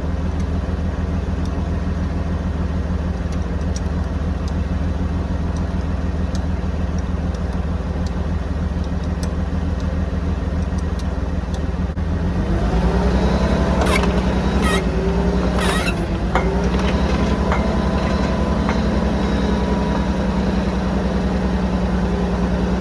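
1975 drill rig's engine running steadily; about twelve seconds in it speeds up and gets louder, with a few sharp metallic squeals and clanks soon after.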